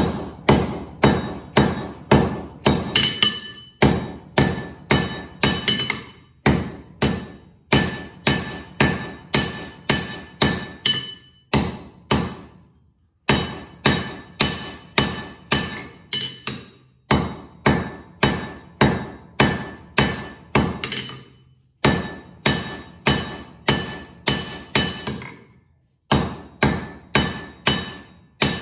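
Blacksmith's hammer striking hot steel from an old file on an anvil, forging a flint striker: runs of blows at about two or three a second, each with a short metallic ring, broken by brief pauses.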